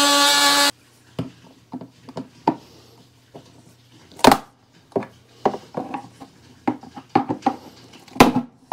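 A cordless oscillating multi-tool running with a steady buzz cuts off suddenly under a second in. Then come scattered clicks and knocks as the plastic lid of a lithium battery case is pried up with two screwdrivers, with two sharp cracks: one about four seconds in and one just before the end.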